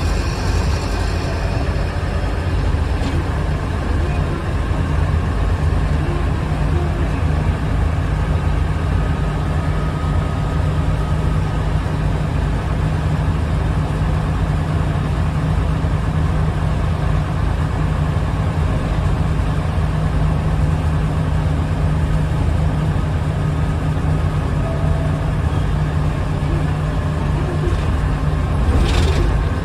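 Interior of a 1997 Nissan Diesel UA (KC-UA460HSN) city bus on the move: its diesel engine drones at a steady pitch under a constant rumble of road and tyre noise, heard from inside the cabin. A short clatter comes near the end.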